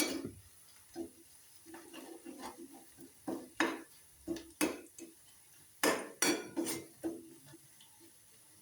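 A cooking utensil knocking and scraping against a pot as food is stirred: a string of irregular clinks, loudest around the middle, thinning out near the end.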